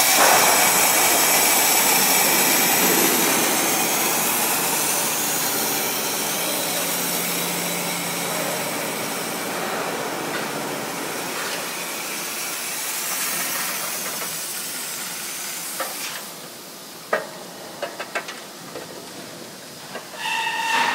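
Double slat roll forming machine running: a loud, steady hissing noise that slowly fades over about fifteen seconds, then a quieter stretch with a few sharp clicks, and a steady motor whine coming in near the end.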